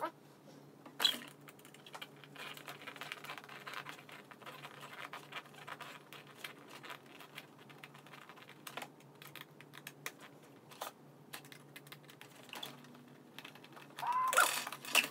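Light clicks and taps of hands working a screw out and loosening a toy remote control from a cardboard packaging insert, with a stretch of faint scratching a few seconds in. A louder burst of cardboard scraping near the end as the remote comes free.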